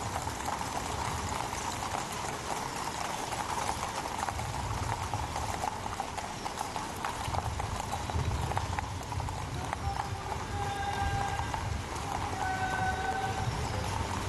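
Horses' hooves clip-clopping, many hoof beats overlapping as a group of horses moves along, with a few short held tones over them near the end.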